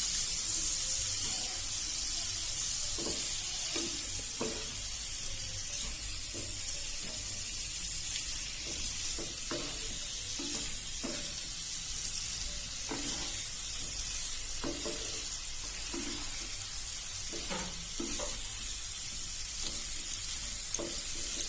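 Cauliflower florets frying and sizzling in oil in a kadai, coated with spice pastes, while a spatula stirs them. The sizzle is a steady hiss, with scattered short scrapes and knocks from the stirring.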